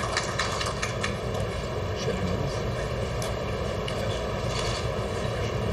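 A few claps of applause fading out in the first second, then a steady, even background noise like a running machine, with a few isolated clicks.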